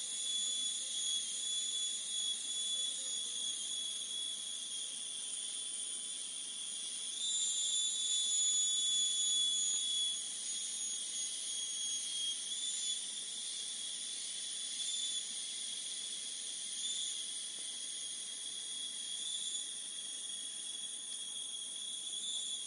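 A chorus of insects in tropical forest: a steady, high-pitched shrill drone with several layered high tones, a little louder between about 7 and 10 seconds in.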